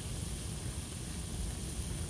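Browned sausage and its grease sizzling quietly in a skillet, a steady even hiss.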